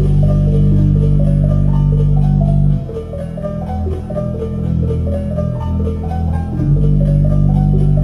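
Music: a plucked-string melody over deep, held bass notes. The bass line shifts about three seconds in and returns to its first pattern near the end.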